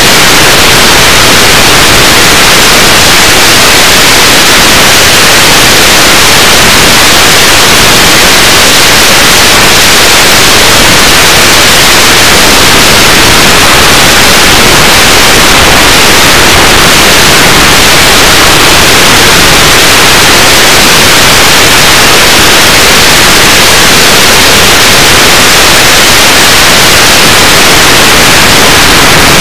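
Loud, steady hiss of radio static with no motor or wind sound in it, typical of the audio channel of an analog FPV video receiver recording on a DVR.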